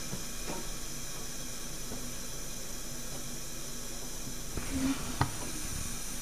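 Faint steady hiss from the leftover water trapped under a fuel canister nested inside a camp-stove pot, with a short knock and a click about five seconds in.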